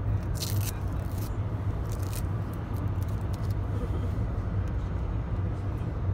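Steady low engine and road rumble inside a moving bus, with a few short crackles of clear tape being peeled off a plastic seat back.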